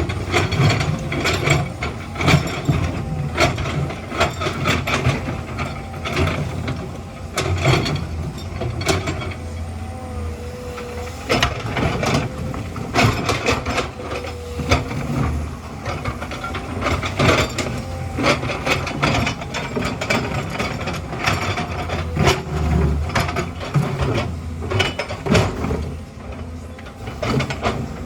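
Excavator at work: its diesel engine runs steadily under irregular clanking and rattling of metal and rock, many sharp knocks scattered throughout.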